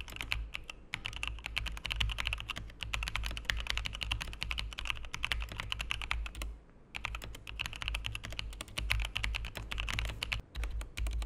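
Typing on a Logitech G715 wireless mechanical keyboard with GX Red linear switches and PBT keycaps: a quick, steady stream of key clacks, with a brief pause a little past halfway.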